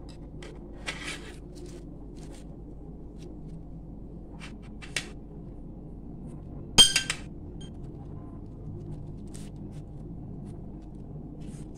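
Light handling of banana-leaf-wrapped cakes and tableware on a plate: a few faint clicks and rustles, and one sharp ringing clink of tableware about seven seconds in. A steady low hum runs underneath.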